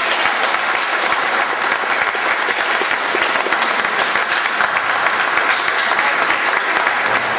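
A small crowd of spectators applauding, many hands clapping at once.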